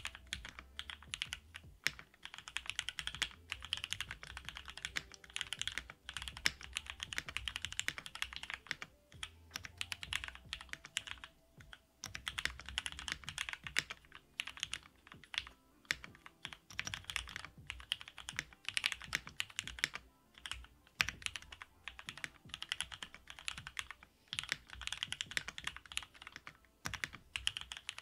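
Continuous typing on a mechanical keyboard: a GOK 7V with lubed Cherry MX Black Hyperglide linear switches on a polycarbonate plate with Poron plate foam, under GMK keycaps. Fast runs of keystrokes broken by short pauses every few seconds.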